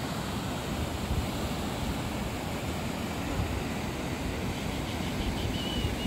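Wind buffeting the microphone: a steady rushing with an uneven low rumble. A faint thin high tone comes in near the end.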